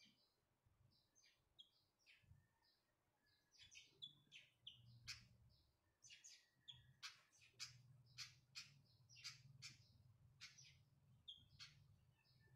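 Faint, quick chirps and squeaky high notes from a pied fantail, sparse at first and coming thick and fast from about four seconds in, over a low steady hum.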